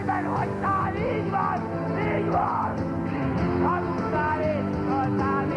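Old, poor-quality recording of a stage musical number: a man singing at full force over instrumental accompaniment.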